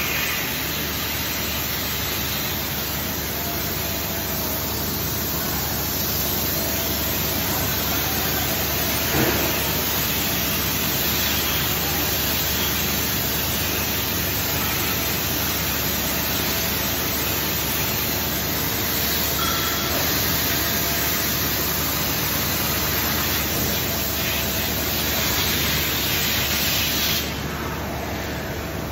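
Die-casting machine and its shop running with a steady, even hiss and hum across the whole range, with one sharp knock about nine seconds in. The high part of the hiss drops away near the end.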